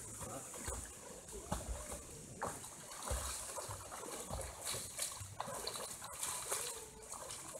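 A person swimming in a river, faint splashing of their strokes in the water, with occasional low bumps on the microphone.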